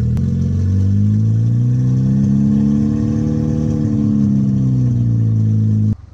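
Built MK6 Golf R's turbocharged four-cylinder engine running with its freshly replaced timing chain, tensioner and cam adjuster; the revs rise gently, settle back, and the engine sound cuts off suddenly near the end.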